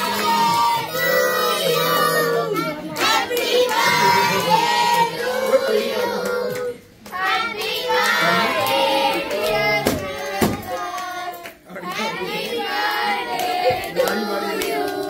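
A group of children singing the birthday song together while clapping their hands, with two short pauses between lines.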